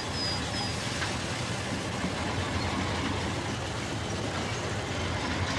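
Conrail diesel locomotive running steadily as it rolls in, a low even rumble. A string of short high tones, about three a second, stops under a second in.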